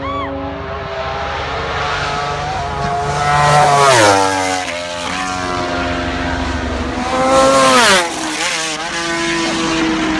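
Two superbike racing motorcycles pass flat out one after the other, about four seconds apart. Each engine's high-revving note climbs and swells as it closes in, then drops sharply in pitch as it flashes by. Near the end a steadier, quieter engine note from another bike follows.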